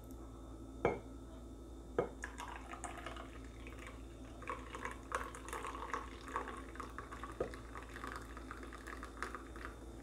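Frothed milk poured from a glass measuring cup into a glass mug of coffee: a soft, crackly pour of foam and milk that stops shortly before the end. Two sharp glass clinks come about a second apart near the start.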